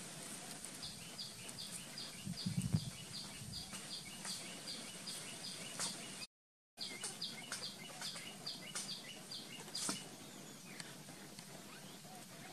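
A bird calling with a rapid run of short, evenly repeated high chirps, about four a second, broken by a brief dropout just after the middle and dying away near the end. A short low rumble about two and a half seconds in.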